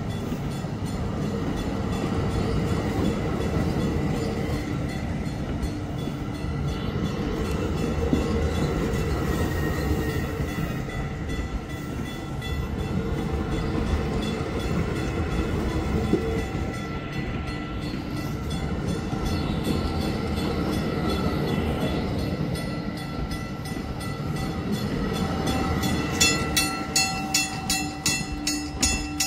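EXO diesel commuter train running, a steady hum with several fixed tones. Near the end, regular wheel clicks over rail joints come in, about two or three a second.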